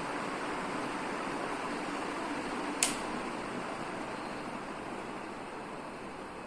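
Ceiling fan running with a steady rush of air and a faint hum, with one sharp click about three seconds in; the sound grows slightly quieter near the end.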